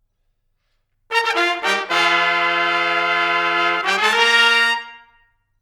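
Solo brass fanfare: a few quick notes, one long held note, then a final higher note that fades away.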